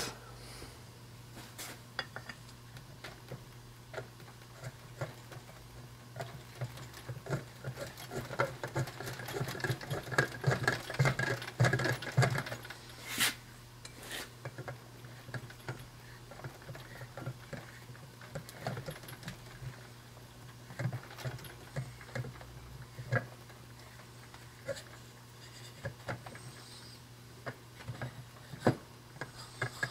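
Metal starter parts being handled and fitted by hand: scattered clicks and taps as the armature shaft, thrust washer and rear plate of a 12-volt tractor starter go together, with a stretch of quick rattling and scraping strokes in the middle and one sharp click about thirteen seconds in. A low steady hum runs underneath.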